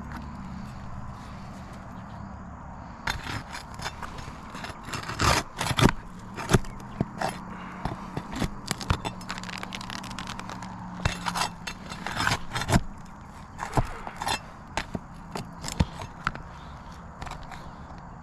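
A metal pry tool working under stiff asphalt roof shingles to pull out the roofing nails: an irregular run of sharp clicks, knocks and scrapes starting about three seconds in.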